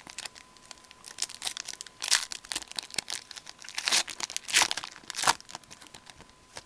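Foil hockey card pack being torn open by hand, the wrapper crinkling and crackling in a string of short rustles, loudest about two, four and five seconds in.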